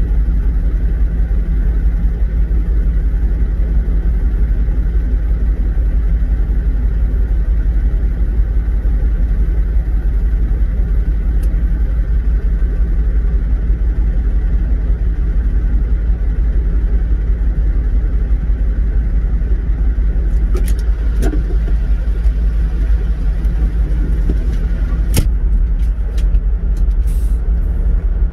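Truck's diesel engine and road noise heard from inside the cab while driving on a gravel track, a steady low drone. A few short sharp knocks or rattles come in the last several seconds.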